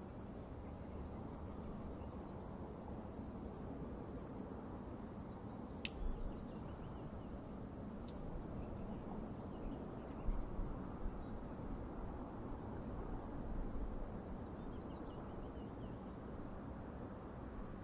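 Outdoor ambience: a steady low rumble, with faint bird chirps now and then and two sharp clicks about six and eight seconds in.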